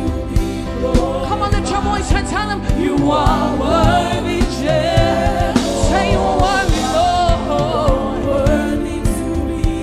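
Live gospel worship music: a band plays a steady groove with drums while a voice sings bending, sliding vocal runs over it.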